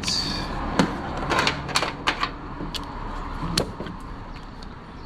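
Hand tools clicking and clinking on metal while the intake manifold bolts are undone, in irregular sharp clicks and knocks over a low steady hum.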